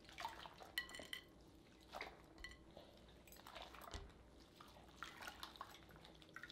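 Faint, scattered clinks and light taps of dishes and utensils, a few single strikes a second or so apart, one with a short ringing tone.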